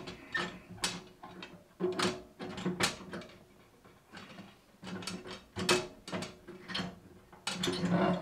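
Cast-iron door of a Hunter Herald 8 wood stove being wiggled back and forth on its hinge pins to work it off, with metal-on-metal clicks and scrapes in several short spells.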